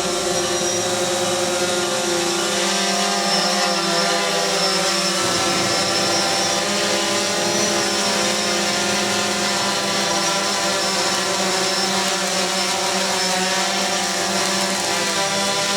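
DJI Phantom 4 quadcopter's propellers and motors running with a steady, many-toned whine as it hovers; the pitch shifts slightly about five seconds in.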